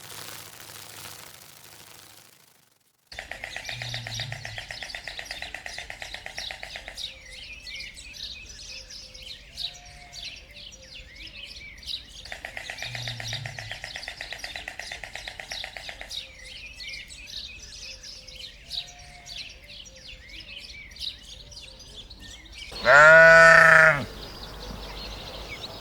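A background of rapid bird chirping that repeats itself, then one loud bleat lasting about a second near the end.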